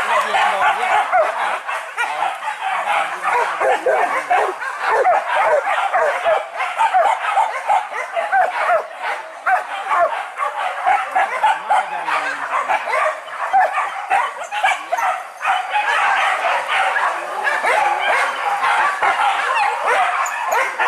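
A pack of boar-hunting dogs barking and yelping without pause, many voices overlapping.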